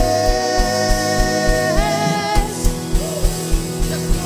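Live worship band playing a contemporary praise song: a singer holds one long note for about the first two and a half seconds, then the band plays on without voice. Acoustic guitar and keyboard chords over a steady kick-drum beat, about three beats a second.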